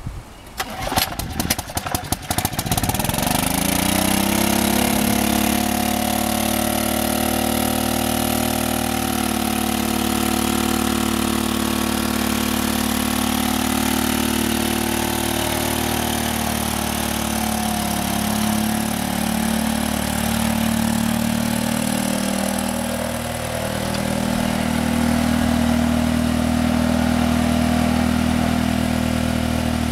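Small engine of a ride-on backyard switcher locomotive starting with a brief clatter, then running steadily as the train moves off, its pitch shifting a little later on.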